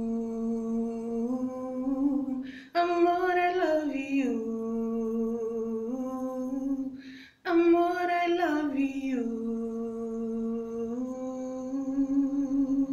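A woman singing unaccompanied: three long wordless phrases, each sliding down from a higher note to a long held low note, with short breaths between them.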